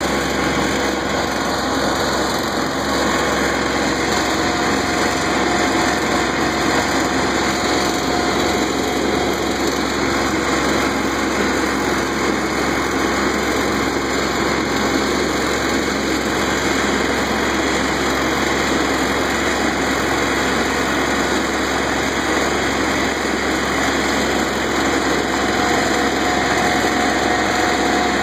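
Kubota B2100 compact diesel tractor running steadily under load, driving a front-mounted Kubota B2660 snowblower that is throwing snow.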